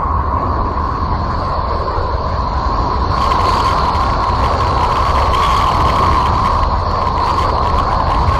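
Steady, rumbling noise drone presented as the sound of a planet in space, with a constant whistling hum running through it. It grows slightly louder and hissier about three seconds in.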